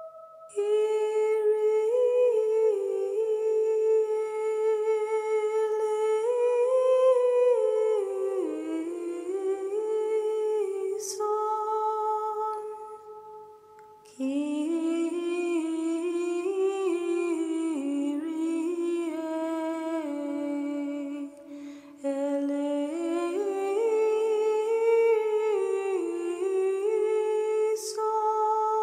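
Slow, soft background music: a melody moving in small steps over steady held notes. It breaks off briefly about twelve seconds in and again about twenty-one seconds in.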